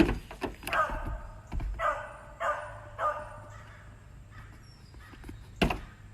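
A dog vocalising in four short, pitched calls in quick succession.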